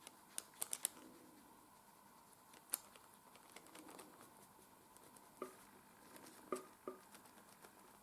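Faint scattered clicks and light taps of a silicone-tipped colour shaper blending coloured pencil on drawing paper: a quick run of four clicks under a second in, a single one near three seconds, and a few more after five seconds, over a very quiet room.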